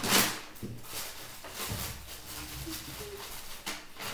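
Rustling and handling as carrots are put into a bag out of sight below the table, with the loudest rustle right at the start.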